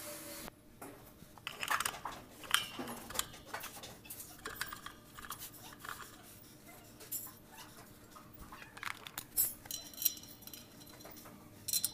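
Hand tools and metal parts clinking and knocking during clutch work under a truck: a scattered series of light, irregular metallic clicks and taps.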